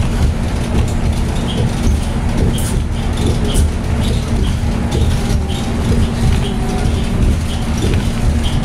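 Cabin noise inside a New Flyer battery-electric bus under way: a steady low road rumble with a constant hum and light rattles from the cabin fittings.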